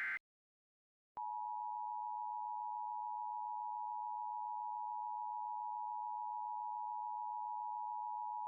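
Emergency Alert System attention signal: two steady tones near 1 kHz sounded together, starting about a second in after the tail of the SAME data header burst. It marks a Required Monthly Test.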